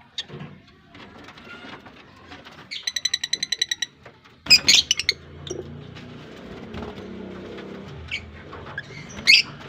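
Lovebirds calling in a colony aviary: a fast trilling chatter about three seconds in, then loud shrill calls from about halfway, with another burst near the end.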